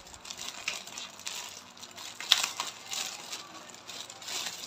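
Plastic bags crinkling and rustling as clothes packed in them are handled, with one sharper crackle about halfway through.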